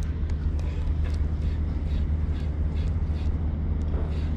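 A boat engine running steadily with a low, even hum, with a few faint ticks over it.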